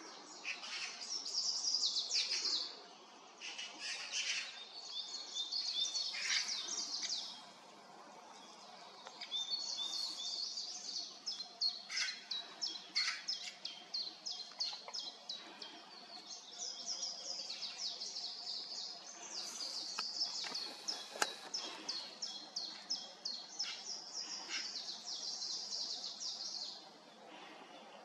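Common chiffchaff singing: long bouts of quick, high, repeated notes with short pauses between them. A few harsher, lower calls from Eurasian magpies break in now and then.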